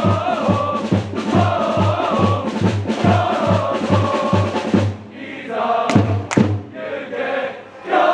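A crowd of football supporters chanting in unison to a bass drum beaten about twice a second. About five seconds in the chant breaks off, two sharp cracks ring out, the drum stops, and only a quieter murmur of voices remains.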